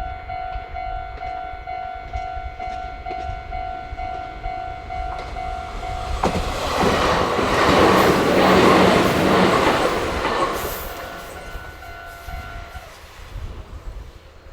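Japanese level-crossing warning bell ringing, about two dings a second. About halfway through, a Meitetsu electric train passes over the crossing with a loud rush of wheels and running gear that rises and then fades. The crossing bell stops near the end.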